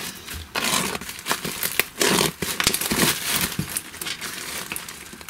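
Shiny plastic parcel wrapping crinkling and rustling irregularly as it is torn open by hand.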